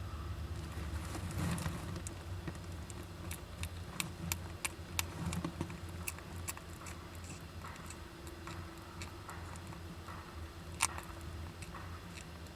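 Japanese giant flying squirrels moving about inside a nest box: scattered sharp clicks and scratches, irregular and sparse, with one louder click near the end, over a steady low hum.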